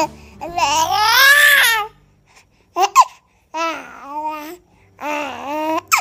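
A baby babbling and squealing in drawn-out, high calls whose pitch slides up and down, about four of them, with two very short sharp sounds close together about three seconds in.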